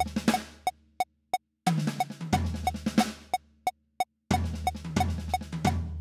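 Roland electronic drum kit playing a triplet six-stroke roll fill (R-LL-RR-L sticking) that ends on an accented hit with a deep boom that rings out and fades. The fill comes around again about every two and a half seconds over a steady metronome click, about three clicks a second.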